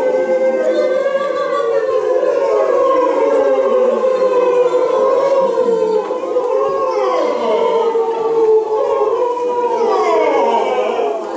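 Several voices holding long notes that slide up and down in pitch, overlapping one another in a continuous siren-like chorus.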